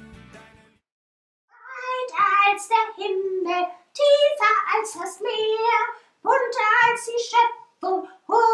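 The end of a song fades out, then, about a second and a half in, a high-pitched put-on voice for a sheep hand puppet sings in short phrases.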